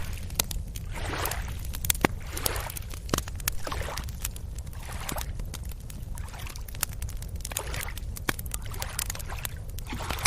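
Small waves lapping on a beach, washing in and out in repeated swells about every second or so, with scattered sharp clicks and a steady low rumble underneath.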